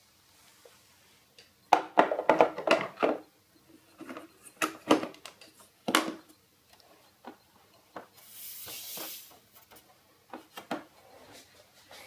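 Plastic clicks, clatter and rubbing as the robot vacuum's removable dust bin is handled and fitted into its compartment, with a brief sliding scrape about two thirds of the way through.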